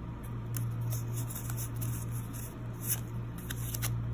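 Pokémon trading cards being slid and flipped through in the hands: light scraping and clicking of card stock, with a sharper click about three seconds in, over a steady low hum.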